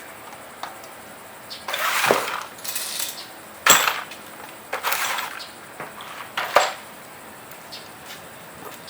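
Metal clanking and rattling as a fat-tire bike's front wheel, with its brake rotor fitted, is put into the fork: a scraping rattle about two seconds in, then sharp clanks at about four, five and six and a half seconds.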